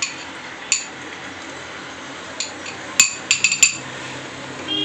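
Metal spoon clinking and scraping against a glass bowl while scooping out soaked nuts and raisins: a few single clinks, then a quick run of about five clinks about three seconds in.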